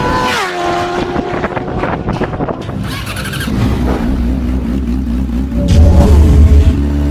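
A motor vehicle's engine, its pitched note dropping sharply at the start, then a deep rumble with a wavering tone that grows louder from about three seconds in.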